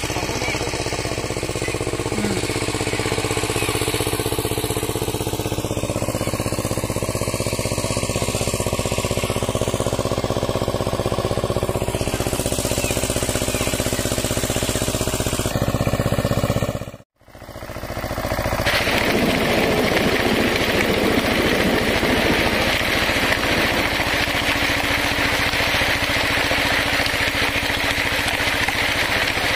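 Engine of a walk-behind power tiller running steadily as it churns a flooded paddy field. It drops out to a brief silence about halfway through, then a steady engine sound with more hiss carries on.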